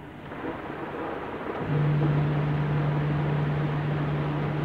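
Kärcher automatic car wash spraying water over the car's roof and windows, heard from inside the cabin as a steady hiss. A bit over a second and a half in, a steady machine hum from the wash starts and the whole sound gets louder.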